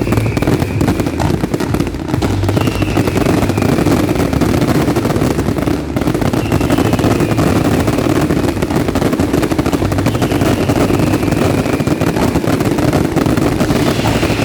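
Fireworks display: a dense, unbroken barrage of rapid bangs and crackling, with a short falling whistle every few seconds.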